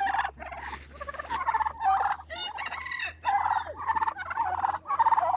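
A flock of domestic turkeys gobbling, one rattling gobble after another with short gaps between, from toms puffed up and displaying.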